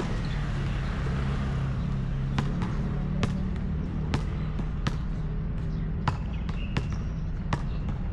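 Basketball dribbled on an outdoor hard court: sharp single bounces about once a second, starting about two seconds in, over a steady low background hum.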